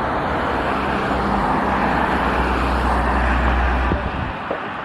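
Jet airliner's engines running, a loud steady rushing noise over a deep rumble; the rumble drops away about four seconds in.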